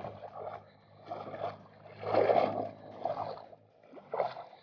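Water sloshing and splashing around the legs of a person wading through shallow river water, in uneven surges about once a second with each step.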